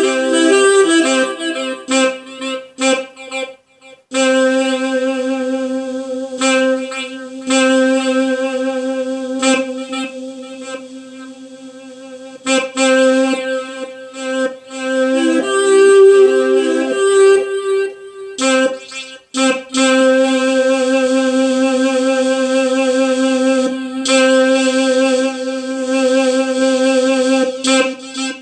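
Korg Pa50SD arranger keyboard voice played from a MIDI controller keyboard as a sound test. Mostly long held notes, with short clipped notes between them. It breaks off briefly about four seconds in and again about two-thirds of the way through, and one held note fades away near the middle.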